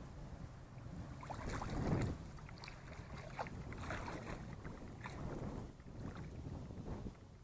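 Wind buffeting the microphone, with small waves lapping and splashing irregularly at the water's edge; the splashing is loudest about two seconds in.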